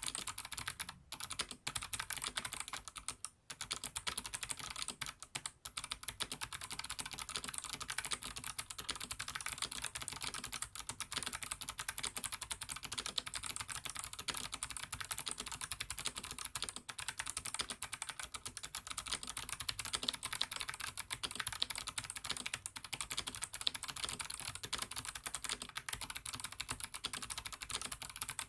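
Continuous fast typing on an mStone Groove T87A SF mechanical keyboard with Novelkeys x Kailh Box Thick Clicks Jade switches on an aluminum plate. Each keystroke gives a crisp click, and there are a few brief pauses in the first six seconds.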